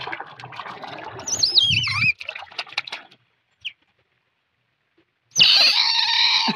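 Pet otters chirping and squealing: high, bird-like chirps that warble and fall in pitch in the first couple of seconds, then a loud, held squeal near the end.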